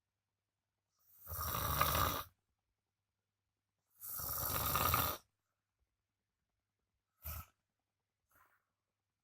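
A man snoring loudly in his sleep: two long snores about three seconds apart, then a short one and a faint one near the end.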